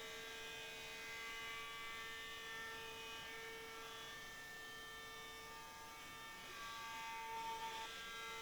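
CNC router spindle whining steadily with several constant high tones as a 1/4-inch solid carbide bit cuts aluminum plate, over a light air hiss. It grows slightly louder about seven seconds in.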